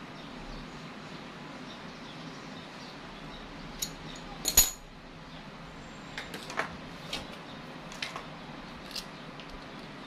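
Small metal tools or parts clinking and clattering as they are handled, about half a dozen light clinks with one sharper clatter about halfway through.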